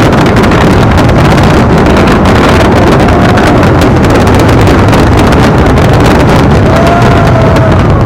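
Loud, unbroken rumble and crackle of a dense fireworks barrage, many bangs and crackles overlapping so fast that they blur into one roar that overloads the microphone.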